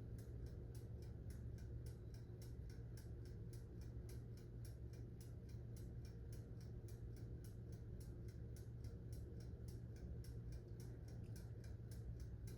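Toaster oven's mechanical wind-up dial timer ticking steadily, about three to four ticks a second, while the oven cooks, over a low steady hum.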